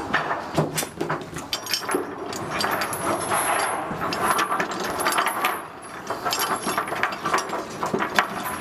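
Heavy steel chain clinking and rattling as its links are handled and pulled against a chain binder's hook, many sharp metal clicks in quick succession.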